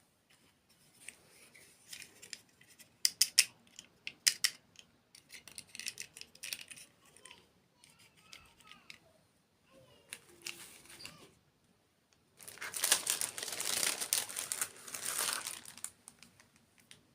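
Close-up crinkling and tearing of crisp packaging, with scattered sharp crackles over the first several seconds and a longer, denser stretch of crinkling about twelve seconds in.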